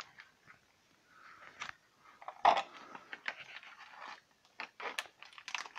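Plastic packaging crinkling and rustling as it is handled and opened, with a loud crackle about two and a half seconds in. A run of sharp clicks and snips from scissors at a small plastic bag follows in the second half.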